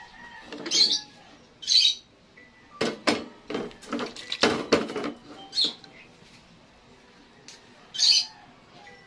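A run of sharp metallic clanks and knocks from a metal pressure cooker's lid and pot being handled and opened. Several short high-pitched chirps come in between, one before and one after the knocks, and two near the start.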